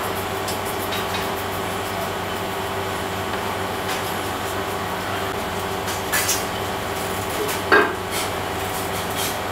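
A steady hum with several low tones, and over it a few light clinks of the metal model and the paste applicator against a stainless steel tray. The sharpest clink, with a short ring, comes about eight seconds in.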